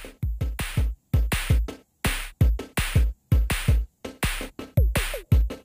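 Background music: a drum-machine beat of deep kick hits and sharp snare or hi-hat hits, several a second, with no melody.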